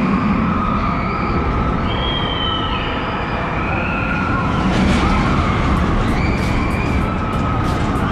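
Drawn-out screams that rise and fall in pitch, from people on amusement park rides, over a steady din of crowd and ride machinery.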